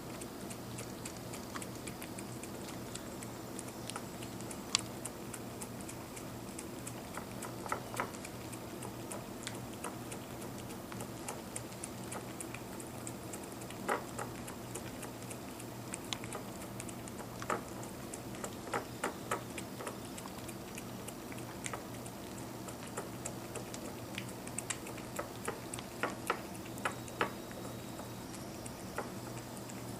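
A dog licking up whipped cream: scattered wet tongue clicks and smacks in irregular clusters, more frequent in the second half, over a steady low hum.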